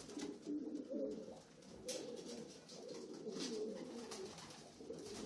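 Several domestic racing pigeon cocks cooing at once, a continuous overlapping warble of low coos.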